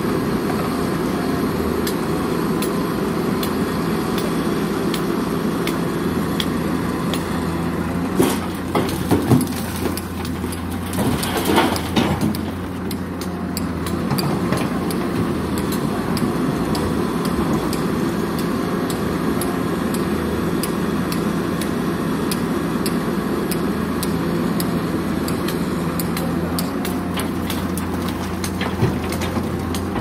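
Heavy diesel engines of an excavator and a tipper lorry running steadily. Around eight to twelve seconds in, a bucketload of soil and rock clatters and thuds into the lorry's steel tipper body.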